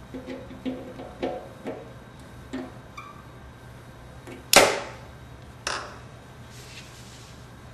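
Pliers working the spring clamp on the fuel line at the petcock: several small metallic clicks, then a sharp, louder snap about four and a half seconds in and a smaller one about a second later.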